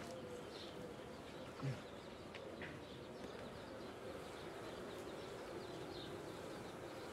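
Honeybees humming steadily from an open hive crowded with bees, with a faint wavering buzz throughout. A few faint bird chirps and one brief low thump about a second and a half in.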